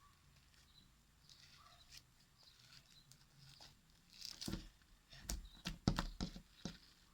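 Sticky clear-glue slime being handled, with faint crackles at first, then a quick run of sharp clicks and pops about four and a half seconds in.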